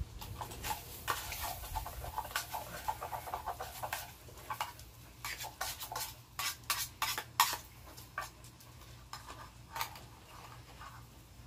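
Spam frying in a metal canteen cup, its pork fat crackling and popping in sharp, irregular snaps. The snaps are dense over the first few seconds and grow sparser after about eight seconds in.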